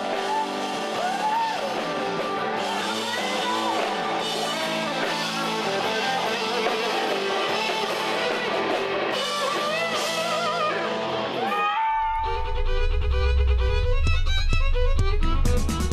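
Music with guitar and fiddle. About twelve seconds in it cuts abruptly to a different, sparser passage of held notes over a heavy low rumble.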